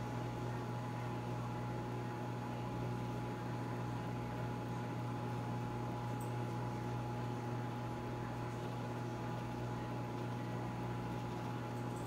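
Over-the-range microwave oven running at full cook, a steady low hum with a faint hiss, cutting off at the very end as the cook time runs out.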